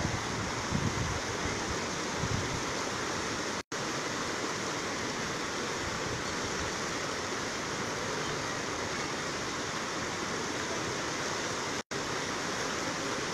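Steady rushing of a flooded river's muddy floodwater flowing past the bank, with a few low rumbles in the first couple of seconds. The sound cuts out for an instant twice.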